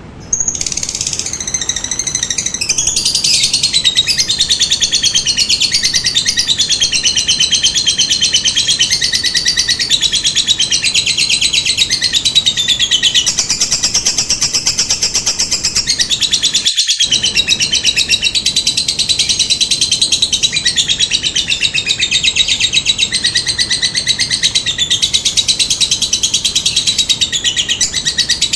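Lovebird giving one long, unbroken, high-pitched chattering trill: very rapid clicks with warbling rises and falls in pitch. This is the prolonged cackling song lovebird keepers call 'ngekek panjang'. It starts abruptly just after the beginning.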